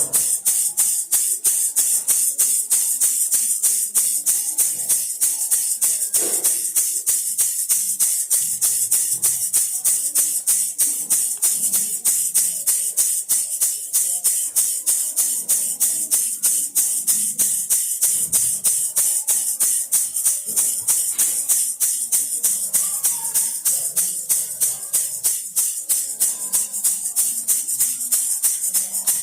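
Baby rattle shaken in a steady, even rhythm, about four shakes a second, each shake a short bright rattle.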